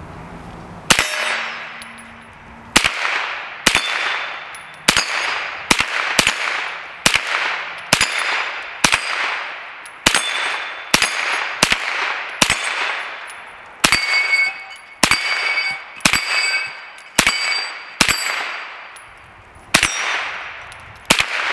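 PSA AK-V 9mm carbine fired semi-automatically, about twenty shots at roughly one a second, with a brief pause near the end. Several shots are followed by a short metallic ring.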